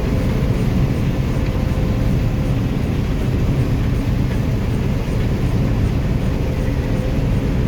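Harvest machinery running steadily under load while harvesting soybeans: a dense, even low rumble with a faint steady whine.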